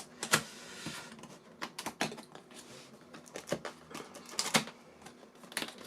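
Irregular clicks, taps and knocks, with a short rustle about half a second in: the box, packaging and parts of a Gaomon PD2200 pen display being handled.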